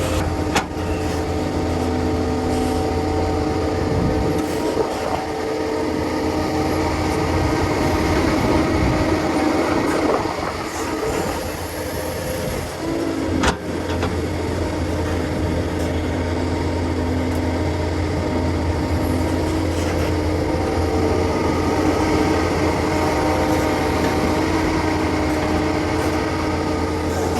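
Heavy earthmoving machinery engines running steadily, a continuous drone with a low hum, easing off briefly about halfway through. A couple of sharp knocks cut through, one near the start and one about halfway.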